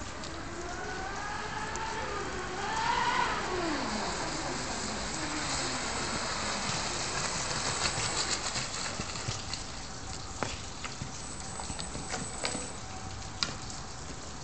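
RC racing catamaran with a TP 4060 1800kv brushless motor on a 6S LiPo, its whine rising and then dropping sharply in pitch as it passes at speed about three seconds in. After that comes irregular slapping and hiss from the hull and prop spray on the choppy water, fading to a faint low-throttle whine with occasional clicks as the boat slows and comes in.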